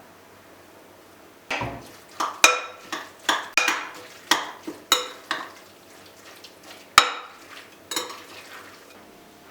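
A run of sharp clinks of hard objects knocking together, about a dozen in some six seconds, each ringing briefly, like a utensil knocking against a dish or pot.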